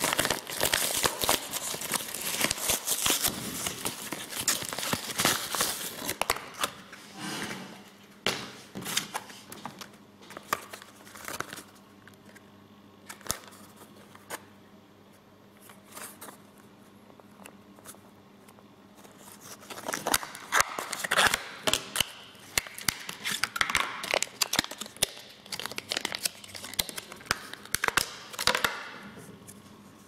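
Hands tearing open a mailing envelope and crumpling the packaging: dense crackling, tearing and rustling for the first several seconds. Then sparser paper and plastic rustles and handling clicks, growing busy again near the end as the wrapping comes off, over a faint steady low hum.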